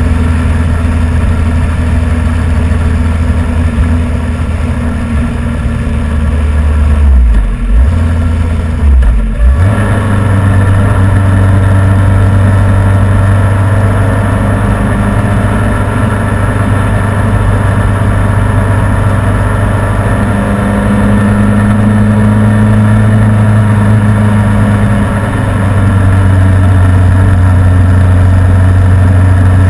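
Motorcycle engine running steadily at road speed, picked up by a camera mounted on the bike's own fairing, with wind and road rush. About seven to nine seconds in the engine note dips twice, then comes back stronger and holds.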